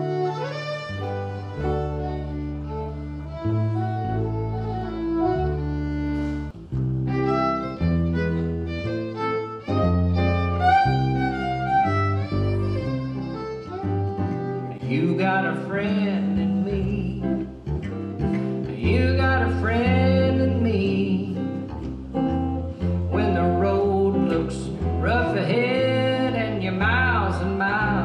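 Fiddle playing a lively melody over a plucked upright bass and a strummed acoustic guitar, a small acoustic string trio. About halfway through, the fiddle line turns to sliding, wavering notes.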